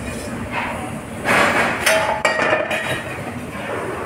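Metal spoon scraping and clinking against a stainless steel pan as cooked dal is scraped out, with a few sharp metal-on-metal clanks.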